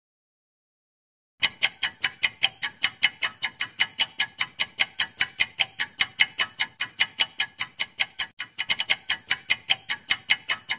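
Quiz answer-timer sound effect of a ticking clock: rapid, evenly spaced sharp ticks, several a second, starting about a second and a half in.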